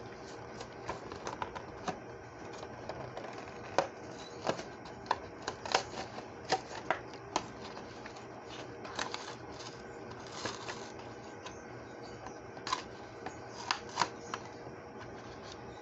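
Toy car packaging being handled and worked open by hand: irregular clicks, taps and crackles as the car is freed from its box.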